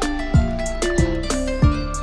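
Background music with a steady beat: three deep kick-drum hits about two-thirds of a second apart under held melodic notes and light ticking cymbals.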